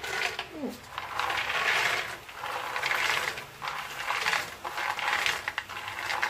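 Raw peanuts poured from a bowl into a frying pan of hot oil, rattling and clattering into the pan in a series of short bursts about half a second apart.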